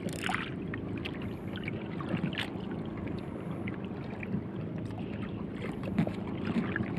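Small outrigger boat's engine running at a steady pitch, with water splashing along the hull and scattered small knocks. A short falling squeak right at the start.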